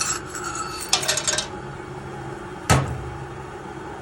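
Small metal objects clinking together in a short cluster about a second in, then a single sharp knock a little before the three-second mark, over a steady low hum.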